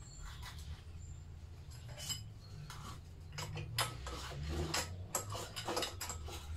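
Irregular small metallic clicks and clinks of bolts, shims and hand tools as the magneto is bolted onto a Lister D stationary engine. They come more often from about three seconds in, over a low steady hum.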